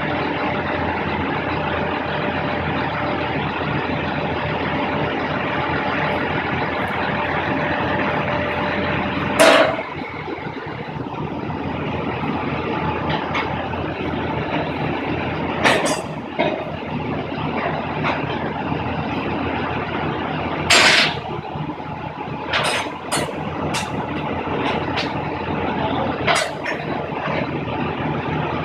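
A vehicle engine running steadily. Short sharp sounds break in about a third of the way in, about halfway, and again near three-quarters through, with smaller ones after.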